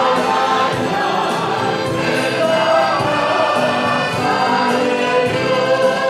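Church choir singing a hymn with instrumental accompaniment.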